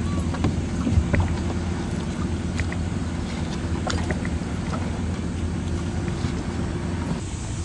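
A boat's engine running steadily, a low even hum, with a few light knocks scattered through it.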